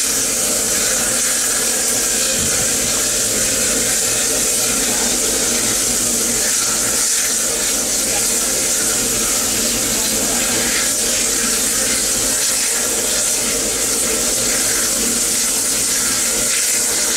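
Water running steadily from a supply pipe into a steam locomotive's water tank at a water stop, a constant rushing noise that never lets up.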